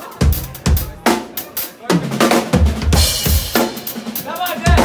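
Live rock band playing, the drum kit to the fore with kick and snare driving a steady beat, and a bright cymbal wash about three seconds in.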